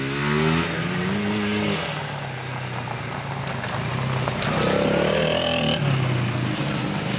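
Small quad (ATV) engine revving, its pitch sliding up and down in the first two seconds, then running again in the second half.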